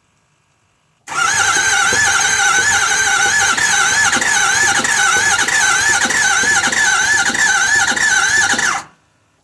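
Ford 6.0 Power Stroke V8 diesel cranking on its starter for about eight seconds without firing: a crank-no-start. The starter's whine wavers up and down in a steady rhythm as each compression stroke loads it, then cuts off.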